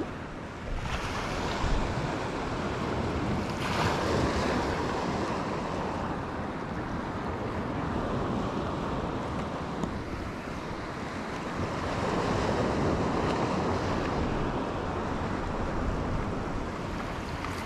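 Sea waves washing in along the shore, swelling and easing, with wind noise on the microphone.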